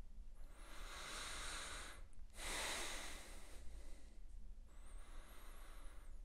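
A person breathing slowly and deeply while holding a yoga twist: three long, airy breaths, each about a second and a half, the last one fainter.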